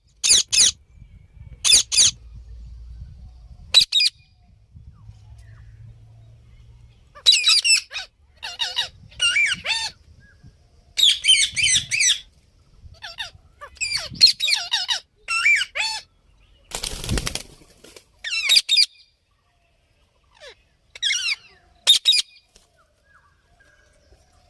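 Indian ringneck parrot calling in short bursts of high, wavering squawks and chatter, with pauses between the groups. About two-thirds of the way in there is one brief, loud rushing burst.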